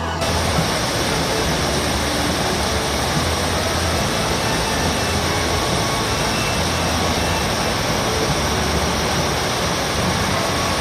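Fast river current rushing steadily through a bamboo fish weir, a loud even rush of water with a low rumble underneath; it cuts in suddenly at the start.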